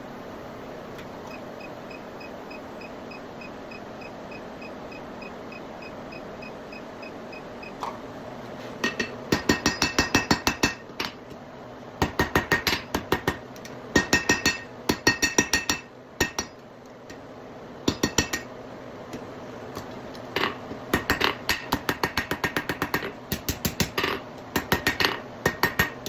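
Hand hammer striking hot steel on an anvil, forge-welding the folded tail of a small forged snail and drawing it to a taper. The blows come in quick runs of about five a second with a ringing note, starting about eight seconds in, over a steady rushing noise before that.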